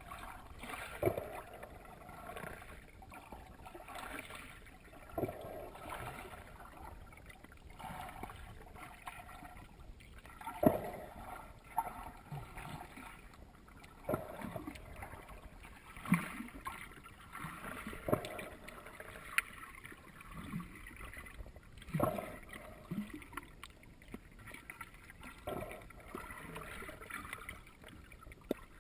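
Muffled water moving around a camera held underwater, sloshing and gurgling, with short dull knocks every few seconds.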